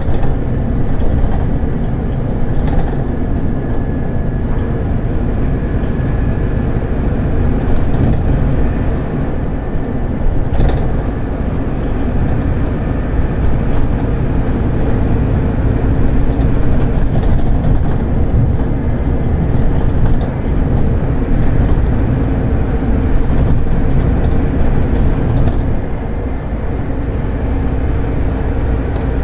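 Scania DC9-29 five-cylinder diesel engine of a Scania K280UD double-deck bus running hard under load, climbing a slope, heard from inside the passenger cabin as a steady low drone mixed with road and body noise.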